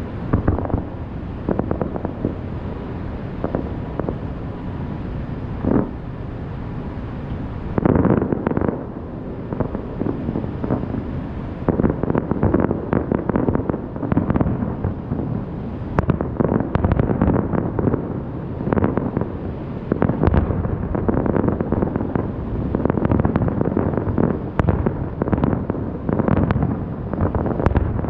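Aerial fireworks bursting: a few separate booms at first, then from about eight seconds in a dense barrage of rapid bangs and crackle.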